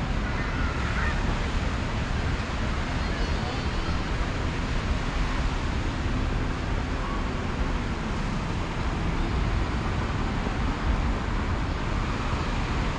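Steady outdoor ambience: wind rumbling on the microphone, with surf and road traffic beneath and faint voices.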